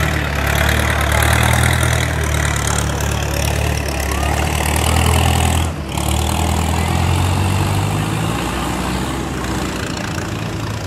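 Diesel tractor engines running steadily with a low rumble, one of them towing a trailer loaded with people through deep mud. The sound breaks off for a moment about six seconds in, then tractor engines carry on.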